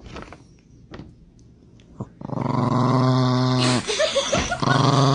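Dog giving a long, loud, low growl that starts a little over two seconds in. It breaks off briefly for a few short, rising yips, then carries on growling.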